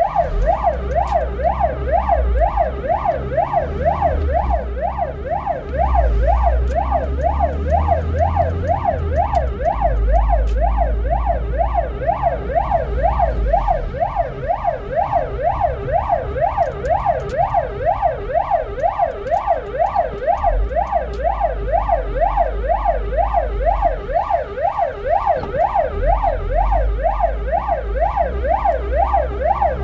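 Ambulance siren on a fast yelp, its pitch sweeping up and down about two to three times a second without a break. It is heard from inside the ambulance's cab over the low rumble of the moving vehicle.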